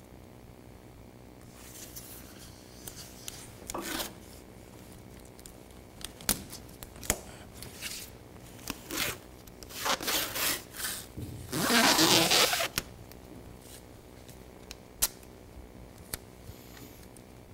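Blue painter's masking tape being pulled off its roll in short rasping rips and rubbed down along a car's rocker panel, with scattered small clicks of handling. The longest, loudest rip comes about two-thirds of the way through.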